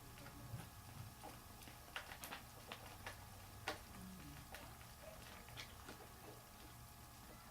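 Faint, irregular clicks and taps from cockatiels moving about, a dozen or so scattered through the stretch with no steady rhythm.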